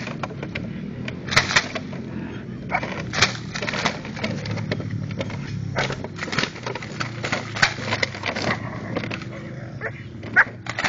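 Empty plastic bottles crackling and clattering irregularly as a Belgian Malinois pup tugs on a bite-suit grip and the decoy shuffles about in the grass.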